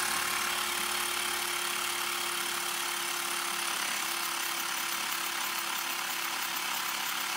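Xiaomi portable electric air compressor switched on and running steadily, a constant motor-and-pump drone with a steady hum, pumping air at only a few psi.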